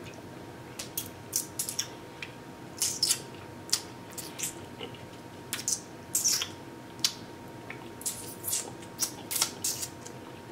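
Wet mouth sounds of a person eating saucy barbecue ribs: irregular lip smacks and clicks while chewing and sucking sauce off the fingers, about two a second.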